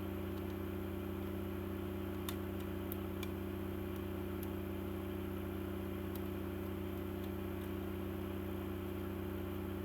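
Steady low background hum, unchanging throughout, with a few faint clicks about two to three seconds in.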